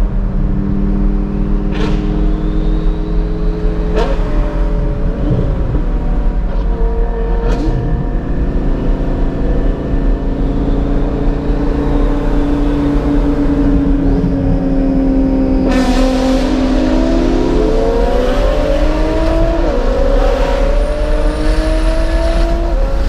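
A car's engine heard from inside the cabin at highway speed, holding steady revs for long stretches, then revving up with a rising pitch in the second half and dropping twice as it shifts up. Steady road and wind noise runs underneath, with a few sharp ticks in the first eight seconds.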